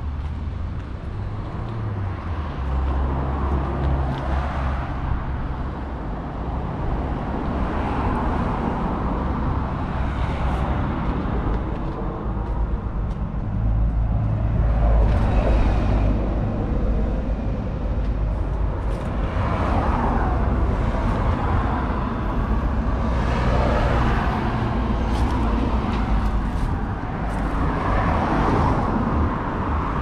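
A John Deere 6140M tractor's 4.5-litre four-cylinder diesel engine idling steadily, with a low, even hum.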